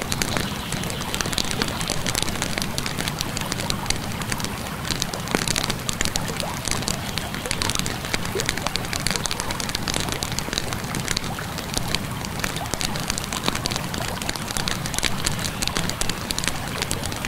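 Bonfire crackling with frequent small pops, over a steady rush of flowing river water.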